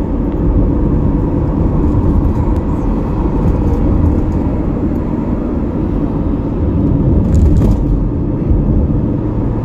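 Steady road noise inside a moving car's cabin: a low rumble of tyres and engine with a constant hum.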